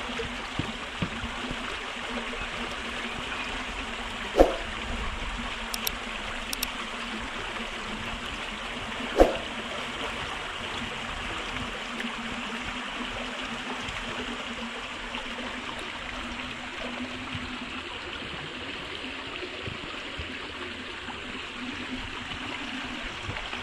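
Creek water running over rocks in a steady rush. Two sharp knocks stand out above it, about four seconds in and again about nine seconds in.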